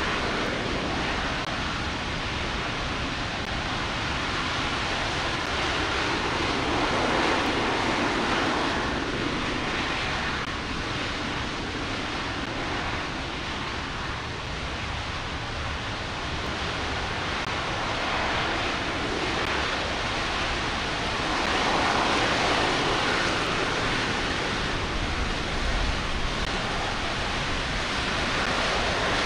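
NASA RS-25 liquid-hydrogen/liquid-oxygen rocket engine running in a ground hot-fire test: a loud, continuous rushing roar that swells and eases slightly every several seconds.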